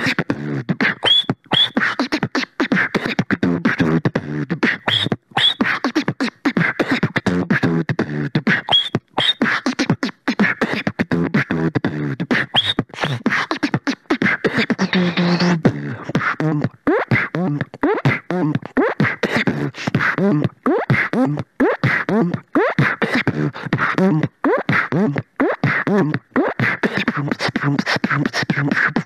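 Solo human beatboxing: rapid vocal-percussion clicks and snare-like hits over stretches of pitched low bass tones. A few short, high rising whistle-like slides come in the first half.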